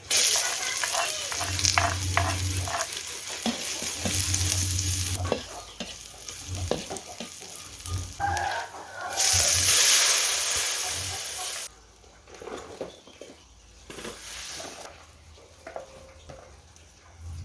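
Stir-frying in a hot pan: loud sizzling with the clinks and scrapes of a stirring utensil. The sizzle flares up again about nine seconds in, then drops away suddenly at about twelve seconds, leaving quieter scraping and clinks.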